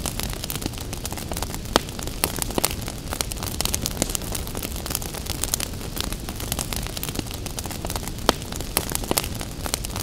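Crackling wood fire: frequent irregular pops and crackles over a steady low rumble of the flames, with a couple of louder pops.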